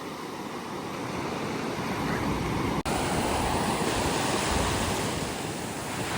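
Ocean surf washing onto a beach, a steady rush of breaking waves with some wind on the microphone. The sound cuts out for an instant nearly three seconds in, then carries on slightly louder.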